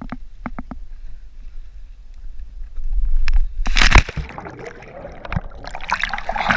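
A waterproof action camera plunging into the sea: a few light knocks in the first second, a low rumble, then a loud splash about four seconds in as it goes under. Muffled underwater bubbling follows, and splashing, sloshing water as it breaks the surface near the end.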